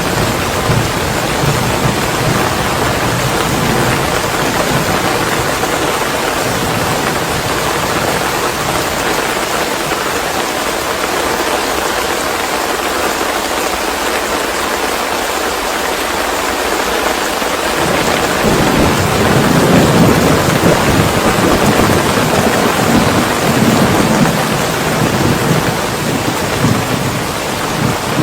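Steady rain with low rumbles of thunder, once near the start and again through the second half.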